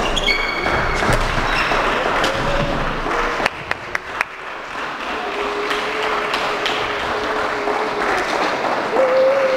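Badminton hall on a wooden court: a steady background din, with shoe squeaks in the first second and a quick cluster of sharp taps about three and a half seconds in. A steady low tone is held for a few seconds in the second half.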